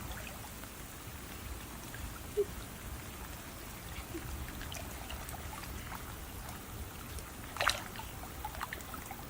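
Water trickling and dripping, with scattered small ticks and one short, louder splash about three-quarters of the way through.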